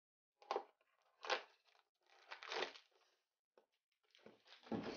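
Cardboard advent calendar door being torn and pushed open by hand: four short papery tearing and scraping rasps, the last one longest.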